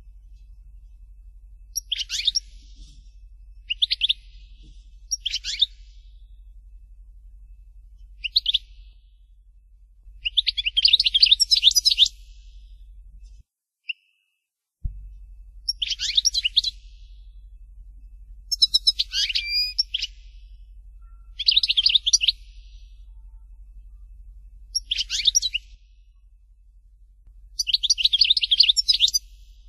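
Algerian goldfinch singing: about ten short, rapid, high-pitched song phrases separated by pauses of a second or two, with longer phrases about ten seconds in and near the end. A steady low hum runs underneath, and the sound cuts out briefly about halfway through.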